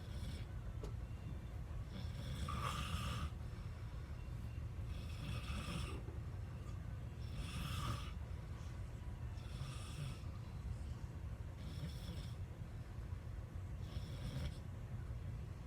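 A sleeping person snoring, with a breath about every two to two and a half seconds over a steady low rumble.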